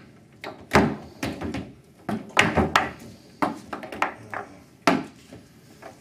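Foosball game in play: the ball and the rod-mounted players knocking against each other and the table. About ten sharp clacks come at irregular intervals, some in quick pairs.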